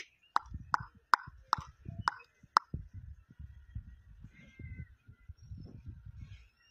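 A dog's short whimpering yelps, six of them about two a second, stopping after about two and a half seconds, over low rumbling noise.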